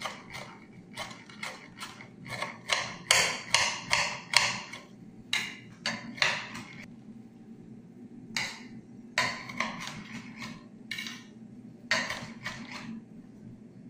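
Kitchen knife chopping fresh parsley, cilantro and lemon balm very finely on a cutting board: irregular runs of quick blade taps with short pauses between them.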